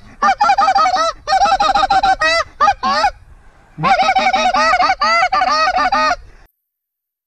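Goose call blown in rapid runs of clucks, about five a second, with a few drawn-out sliding notes near the middle, a short pause, then another run of clucks. The sound cuts off dead about six and a half seconds in as the recording's audio drops out.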